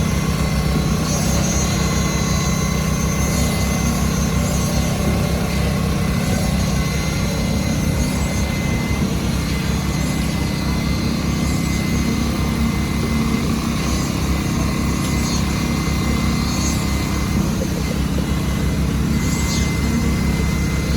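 An engine running steadily with a fast, even low throb, with a thin steady high whine above it.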